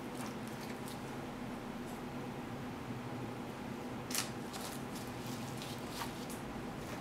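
Knife cutting raw chicken on a plastic cutting board, with gloved hands moving the pieces: soft wet handling sounds and a few light taps, the sharpest about four seconds in, over a steady faint hum.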